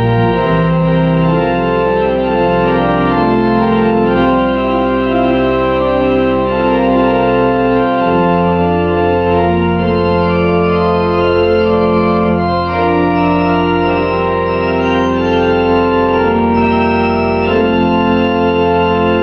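Organ playing a closing postlude in sustained chords, with the bass note changing about eight seconds in.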